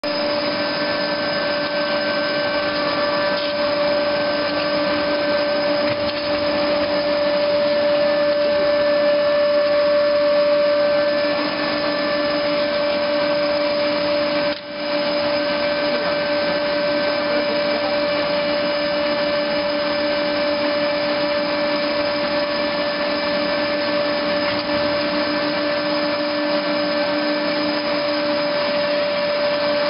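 Plastic tube coiling line machinery running in a factory: a steady, loud mechanical whine and hiss with a constant hum, dipping briefly about halfway through.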